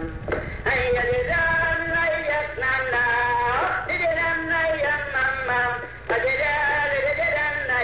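Background music with a sung melody: held notes over accompaniment, with two short breaks between phrases.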